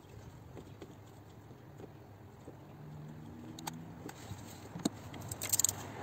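Faint scattered clicks and taps of metal tools being handled, then a sharp click about five seconds in and a brief metallic jingle.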